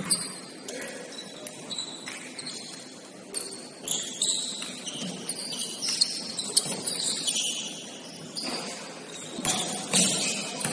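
Basketball shoes squeaking on the court floor in many short, high-pitched chirps as players cut and stop, with a few sharp knocks from the ball bouncing.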